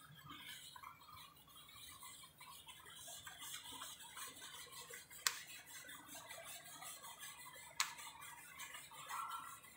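Faint, irregular chirping of small birds over a low hum of distant road traffic, with two sharp clicks, about five and about eight seconds in.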